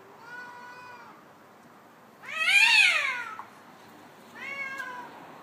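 Domestic cat yowling in a territorial standoff: three drawn-out calls, the middle one much the loudest, rising and then falling in pitch.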